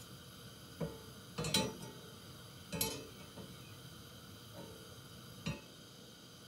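A knife and kitchen utensils clinking and knocking on a worktop: a handful of short clinks, loudest about a second and a half in, with a last one near the end.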